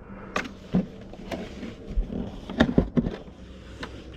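Packaging and gear being handled during an unboxing: a string of irregular knocks, clicks and rustles as things are moved about in the box, the loudest cluster a little past halfway, over a faint steady hum.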